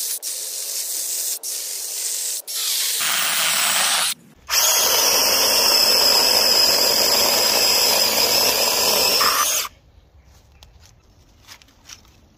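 Cordless electric chainsaw running and scoring grooves along the top of a log, with a high steady whine as it cuts. It drops out briefly about four seconds in, then runs again until it stops near the end, leaving faint crackles of dry twigs being handled.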